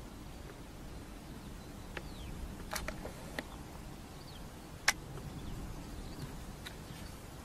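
Open-field ambience: a steady low wind rumble with a few sharp clicks, the loudest about five seconds in, and several faint, short, falling chirps from small birds.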